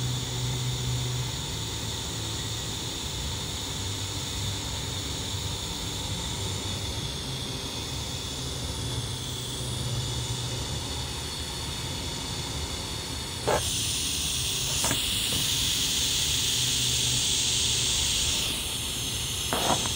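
Steady hiss of TIG welding on thin-wall titanium tube, from the arc and the argon shielding gas, over a low hum. About two-thirds of the way in there is a click, and the hiss grows louder for about five seconds. Another click comes near the end.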